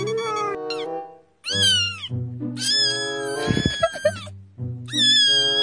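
Cat meowing several times, with one long, drawn-out meow about halfway through, over background music.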